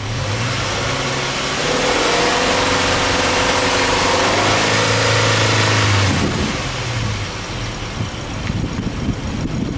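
Subaru Impreza Sport 2.0i's 2.0-litre horizontally opposed (boxer) four-cylinder engine free-revved with the car standing: revs climb over about two seconds, hold high for about four seconds, then drop back to idle.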